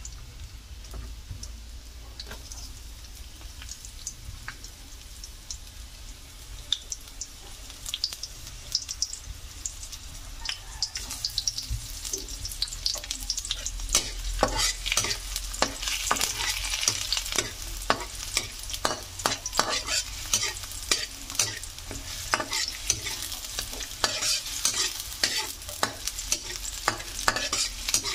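Chopped onion and garlic sizzling in hot oil in a metal wok while a metal spatula is stirred through them, scraping and clicking against the pan; this is the sauté of the aromatics for chicken adobo. The sizzle and the spatula clicks grow louder and busier about halfway through.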